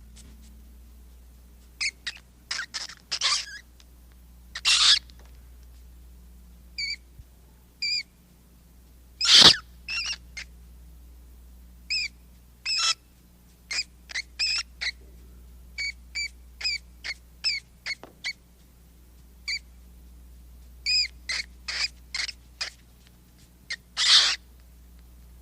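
Rat squeaking: a long series of short, high-pitched squeaks, some in quick runs of several a second, broken by a few longer, harsher squeals. The loudest of these comes about nine seconds in, with others around five seconds and near the end.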